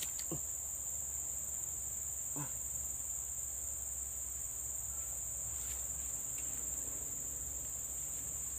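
Insects droning steadily in a continuous high-pitched buzz, with two faint short falling sounds in the first few seconds.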